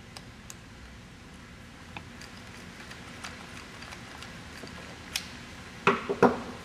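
Metal hardware clicking and knocking as a tripod mounting plate is fitted onto a rifle's bolt-on aluminum rail: scattered light clicks, a sharp knock about five seconds in, then two louder knocks close together near the end.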